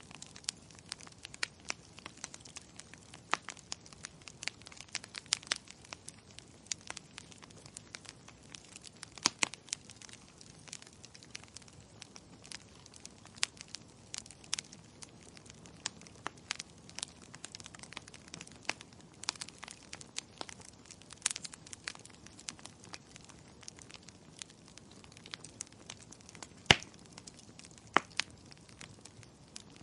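Wood fire crackling: irregular sharp pops and snaps over a soft low hiss, with a louder pop near the end.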